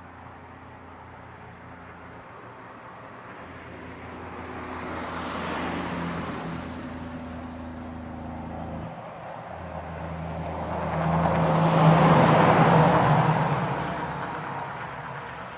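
Two heavy trucks passing on a highway one after the other, each an engine hum with tyre roar that swells and fades; the second, about two-thirds of the way through, is the louder.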